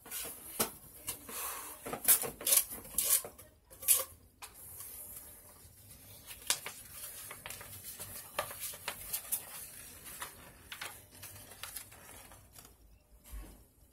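Paper and packaging being handled and unfolded by hand: rustling and crinkling with sharp clicks and taps, loudest in the first few seconds.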